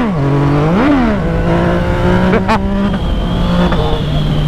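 Yamaha MT motorcycle engine pulling hard through two quick rises and drops in revs about a second apart, typical of upshifts, then holding a steady cruise. Wind rumble sits under it, and there is a single sharp click about halfway through.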